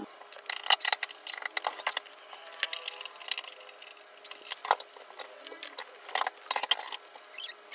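Irregular light clicks, taps and knocks of small objects being handled and set down.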